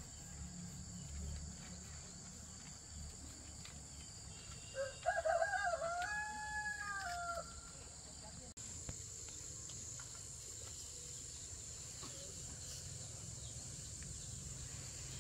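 A rooster crows once, about five seconds in: a single drawn-out call that holds its pitch and then drops off at the end, over a steady high buzz of insects.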